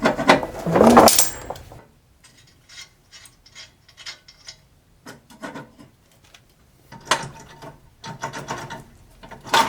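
Hand ratchet clicking in short runs, with metal parts knocking, as exhaust manifold bolts are worked loose. There is a louder burst of sound at the start, and the clicks grow louder about seven seconds in.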